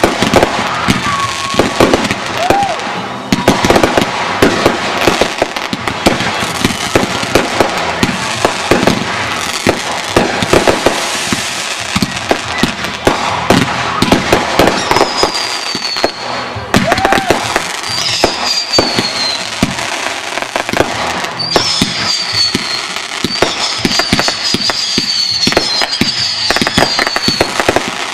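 Fireworks finale: a dense, nonstop barrage of bangs and crackling from aerial shells and rockets. From about halfway through, high whistles falling in pitch sound several times over it.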